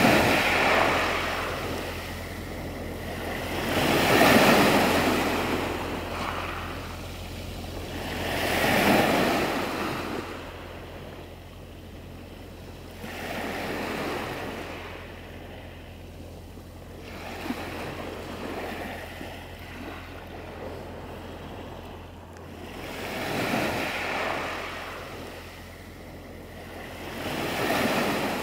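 Sea waves washing onto a shore, each one rising in a rush and falling away every four to five seconds, with a calmer stretch in the middle.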